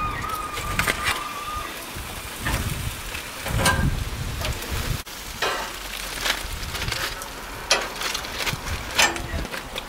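Metal grill tongs handling foil-wrapped spareribs on a cast-iron grill grate: aluminium foil crinkling and rustling, with irregular clicks and clacks of the tongs against the packets and grate.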